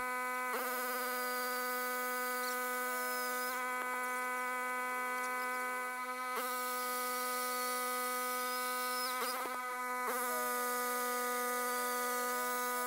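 Background music: a steady droning chord with a faint wavering melody line above it and a soft hit every few seconds.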